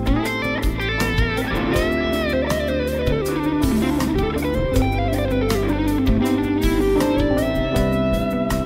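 Yamaha Pacifica 112J electric guitar played through the Line 6 POD Go's Matchstick Ch2 amp model: a melodic lead line whose notes bend and waver in pitch in the middle stretch.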